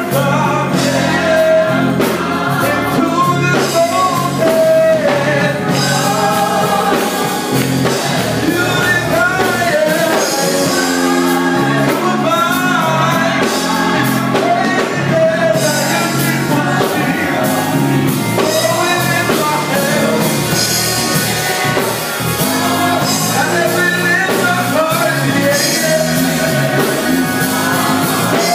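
Gospel vocal group singing with instrumental accompaniment and a steady beat.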